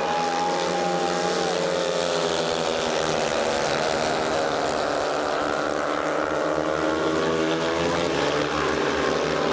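Several speedway motorcycles' single-cylinder 500 cc methanol engines running hard as the riders race through a bend, the engine note rising and falling as they throttle on and off.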